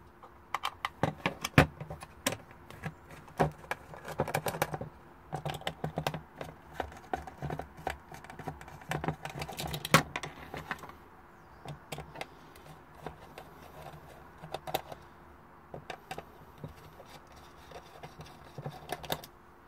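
Small screwdriver backing out the case screws of a red plastic diagnostic-interface housing. Irregular clicks, ticks and scrapes come from the driver tip, the screws and the plastic case being handled.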